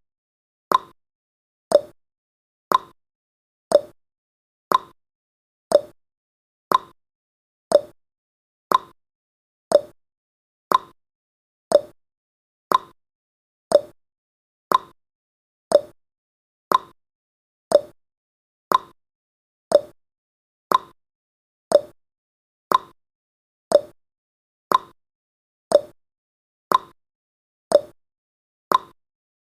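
Clock-style tick-tock sound effect of a countdown timer: sharp clicks two a second, alternating between a higher and a lower tick.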